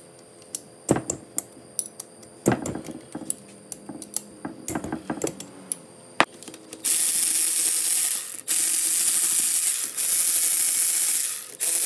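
Scattered metal clicks and taps, then, about seven seconds in, a loud rapid ratcheting of a ratchet wrench backing out engine case bolts, in three long stretches with short breaks.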